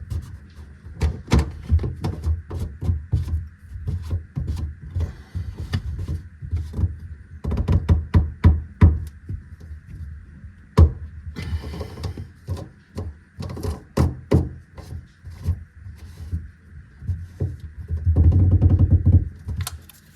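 Plastic drain fittings clicking, knocking and clattering irregularly as a sink P-trap is fitted back on and its slip nuts are worked into place under the sink, with one sharper knock about halfway through.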